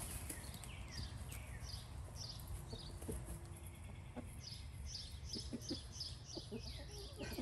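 A small bird chirping over and over, a few short high chirps a second, each falling in pitch, with a short pause a little after three seconds. A low rumble runs under it, and a few soft clucks from chickens come in the second half.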